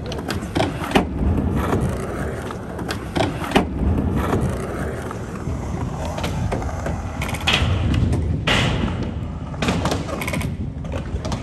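Skateboard wheels rolling over rough concrete with a continuous low rumble, broken by several sharp clacks and knocks of the board, bunched together in the last few seconds.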